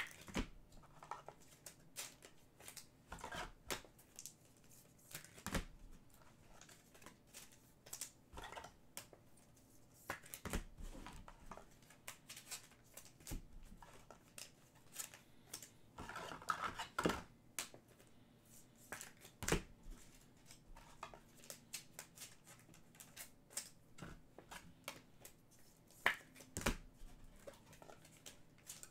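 Trading cards being handled and slid into plastic sleeves: irregular small clicks and rustles of card and plastic, with a short louder flurry about sixteen seconds in.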